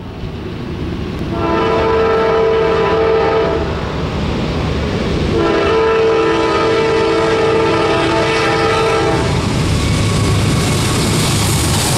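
Norfolk Southern diesel locomotive's air horn sounding two long blasts for a grade crossing, a chord of several notes held steady. After the second blast the low rumble of the approaching locomotive grows.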